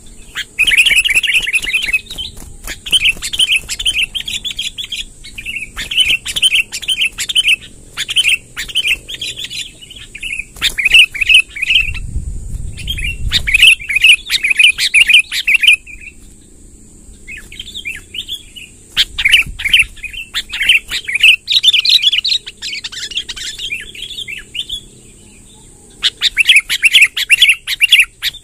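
Sooty-headed bulbul (kutilang) song: repeated bursts of rapid, chattering, warbling phrases, each a second or two long, separated by short pauses. A faint steady high whine runs underneath.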